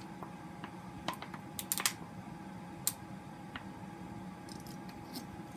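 Slime being handled and pulled from its container, giving scattered small clicks and crackles: a little cluster a couple of seconds in and one sharp click near three seconds, over a steady low hum.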